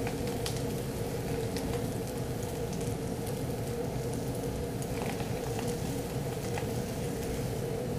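Methanol fire tornado whirling in a spun bowl: a steady rushing flame noise with scattered faint crackles over a constant hum.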